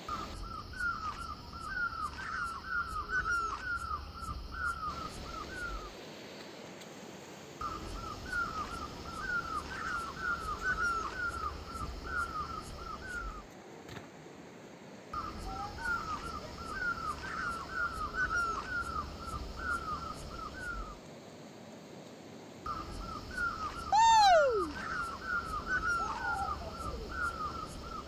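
Animal calls: a fast run of chirping notes, repeated in bouts of about five seconds with short gaps, four times over. A single loud call falling in pitch cuts in about 24 seconds in.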